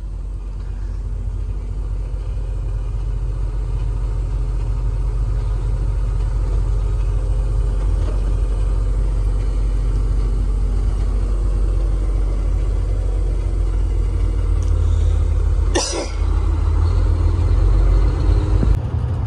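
Volvo semi truck's diesel engine heard from inside the cab, pulling away and getting steadily louder as it gathers speed. A brief sharp knock comes about three quarters of the way through.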